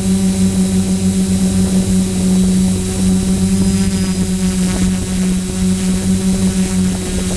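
DJI F450 quadcopter's four brushless motors and propellers in flight, heard close up from a camera mounted on the airframe. They make a steady, loud hum with an even, pulsing beat a few times a second.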